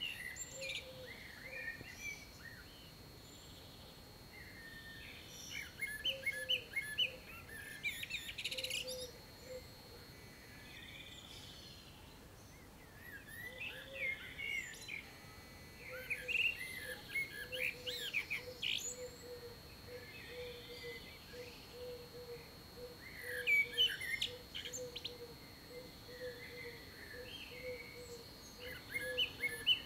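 Songbirds singing at dawn: bursts of quick chirping song phrases come and go every few seconds. Through the second half a low note repeats about twice a second, over a faint steady high tone.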